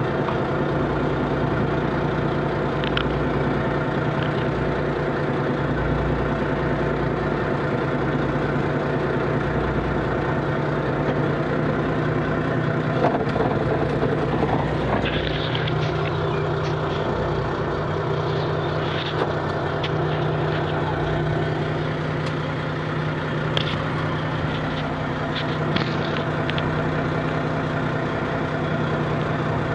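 Steady mechanical drone of a small fishing boat's engine and powered net hauler running while a trammel net is hauled in. Scattered clicks and knocks come about halfway through and again near the end.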